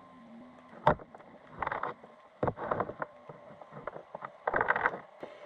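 Muffled underwater knocks and scraping clatter heard by a camera in its waterproof housing inside a lobster trap on the sea floor. There is a sharp click about a second in, then irregular bursts of clatter.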